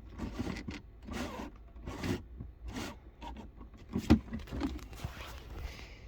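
Plastic dashboard trim being forced and slid by hand to reach the car's OBD port: a series of short scraping, rubbing noises about once a second, with a sharp knock about four seconds in.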